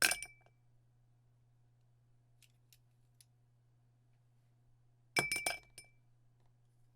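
Pens and pencils dropped into a drinking glass, clattering and clinking against it with a brief glass ring: once right at the start and again about five seconds in, with a few faint small ticks in between.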